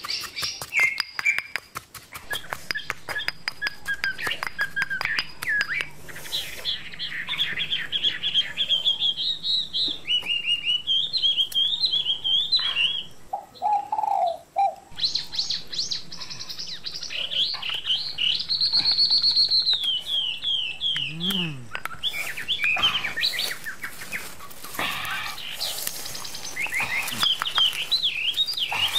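Birds chirping and twittering in quick rising and falling notes, over a rapid series of knocks from a pestle pounding in a stone mortar in the first several seconds, with more knocks near the end.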